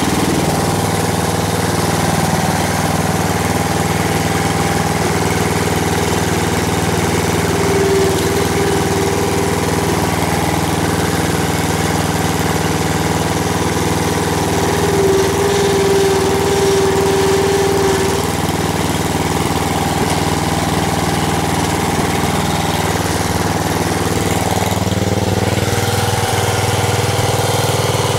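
Engine of a 1975 Gilson Hydro 16 garden tractor running steadily as the tractor pulls a fence post straight by a strap. A higher whine rises over the engine about eight seconds in and again from about fifteen to eighteen seconds, and the engine note shifts near the end.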